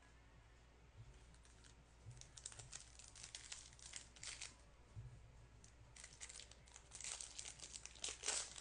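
Foil wrapper of a sports card pack crinkling and tearing as it is opened, heard as a run of short, faint rustles starting about two seconds in.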